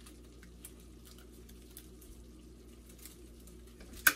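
Faint crinkling and small ticks of a plastic sauce sachet being squeezed out over a bowl of instant noodles, with one sharp click about four seconds in.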